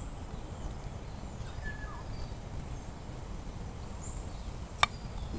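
Steady outdoor background noise with a few faint bird chirps, and one sharp click near the end as fingers work the cap of a small bottle open.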